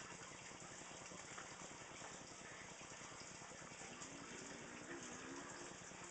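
Faint, steady background hiss with a low hum, and a brief faint wavering tone about four seconds in.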